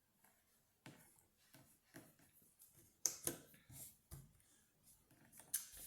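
Faint, scattered clicks and taps of cardboard jigsaw puzzle pieces being handled and set down, the loudest a little after three seconds in.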